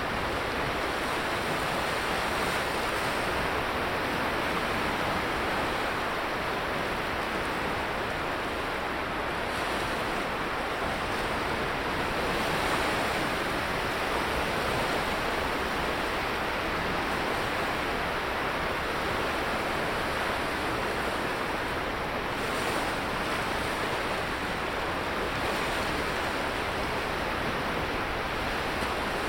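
Sea surf breaking and washing up the beach in a steady rush, swelling a little now and then as larger waves come in.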